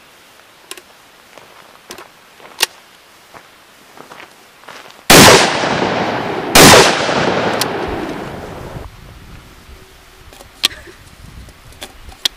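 Two blasts from a 12-gauge side-by-side shotgun with barrels cut down to 11 inches, firing 00 buckshot one barrel after the other about a second and a half apart, each followed by a long echo. Before them come a few light clicks as the shells are loaded and the break action is closed.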